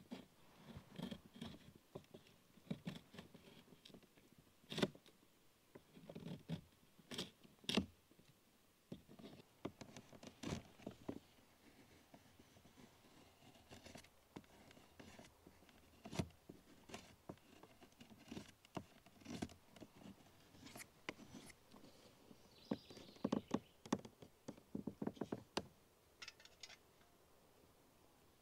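Irregular clicks, knocks and scrapes of hand work on a birch bark canoe's wooden gunnel cap: the wood being handled against the gunwale and worked with a knife. The loudest knocks come about five and eight seconds in.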